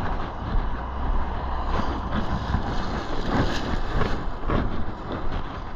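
Highway traffic passing at speed: a steady rush of tyres and engines with a low rumble.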